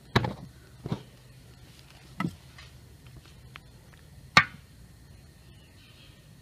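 Four sharp knocks at uneven intervals, the first and last the loudest, over a faint steady low hum.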